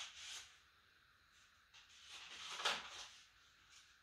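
Paperback book pages rustling as they are turned by hand: a brief rustle just after the start and a louder one a little before three seconds in.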